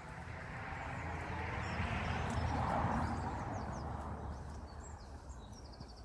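A car passing by on a road, its tyre and engine noise swelling to a peak about three seconds in and then fading away, with small birds chirping.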